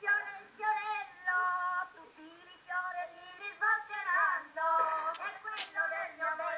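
A single high voice singing a Calabrian folk song, in long held notes that sometimes waver and bend.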